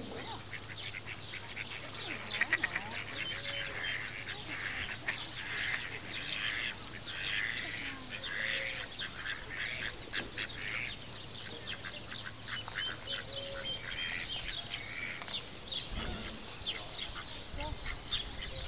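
Birds chirping and peeping continuously: a dense chorus of short, high-pitched calls.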